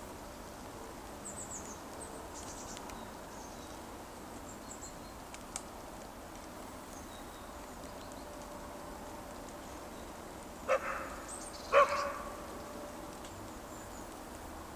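A dog barks twice, about a second apart.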